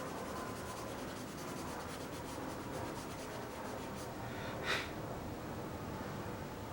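Stabilo CarboThello pastel pencil scratching quietly across vellum-surface Strathmore mixed media paper as colour is shaded in, with one brief louder stroke about four and a half seconds in.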